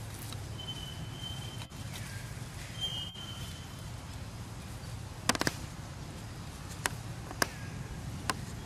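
Outdoor ambience with a steady low rumble, two thin high whistles in the first few seconds, and a handful of sharp clicks or snaps in the second half, the loudest a quick cluster about five seconds in.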